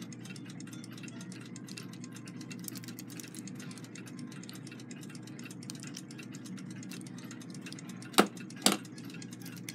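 Small metal nut driver working the pillar nuts off the brass plates of a Westclox Big Ben clock movement, with two sharp metallic clicks about half a second apart near the end. Under it runs a steady low hum and a faint, fast, even ticking.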